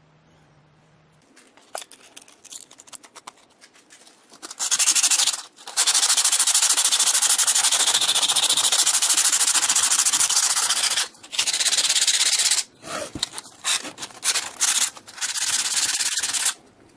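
Power sanding in loud bursts, the longest about six seconds, with clicks and handling noises between the bursts.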